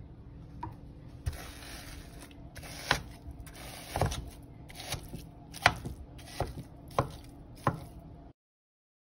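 A spatula chopping and breaking up a block of raw ground turkey in an oiled frying pan, with sharp knocks against the pan about once a second over a hiss of sizzling. The sound cuts off suddenly near the end.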